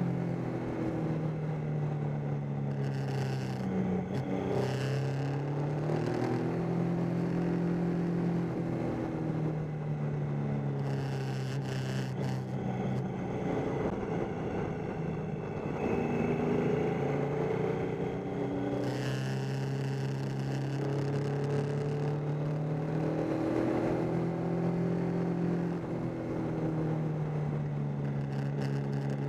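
Triumph Tiger 800's three-cylinder engine running steadily while riding a twisty road. Its pitch dips and climbs again several times as the throttle is eased and reopened through the bends, with wind hiss coming and going.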